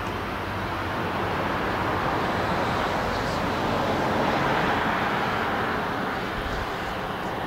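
Steady rushing noise of distant vehicles, swelling about halfway through and easing off toward the end.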